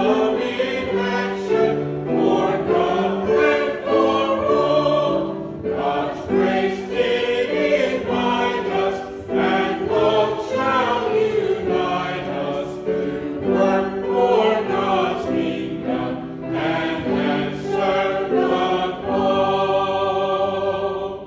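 A church choir singing in harmony, with several voices holding and moving through sustained chords.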